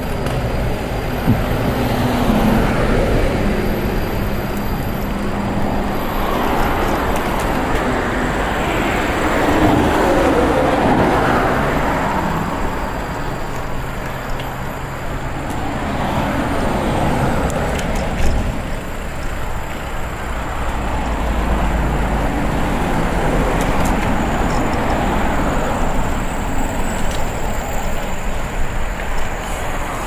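Road traffic passing close by: a steady low rumble, with cars going by one after another, each swelling and fading over a few seconds.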